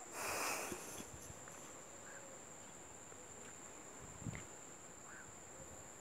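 Insects trilling in one steady, high-pitched tone. There is a brief rush of noise in the first second and a soft knock about four seconds in.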